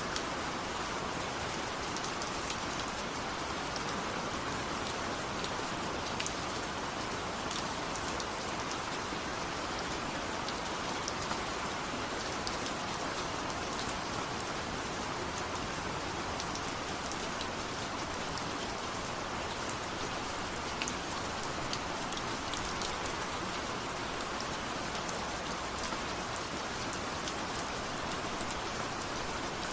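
Steady rain falling, with scattered sharp drip ticks of individual drops on a surface over a constant patter.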